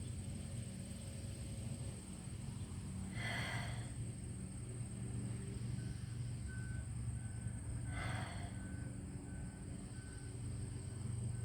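Slow, deep breaths held in a yoga pose, two audible exhales about four to five seconds apart, over a steady low hum. A faint high beep repeats about twice a second through the second half.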